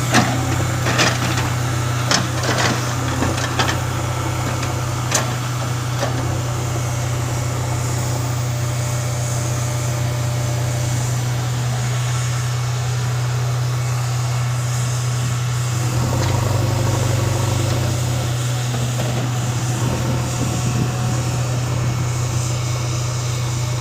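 Backhoe loader's diesel engine running steadily with a deep, even drone, with several sharp metal knocks in the first few seconds.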